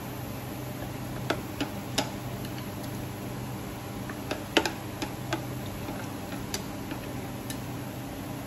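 Chopsticks clicking against a glass bowl and pan rim while starch-coated pomelo-pith cubes are scraped into boiling water: irregular sharp taps, the loudest about four and a half seconds in, over a steady low hum.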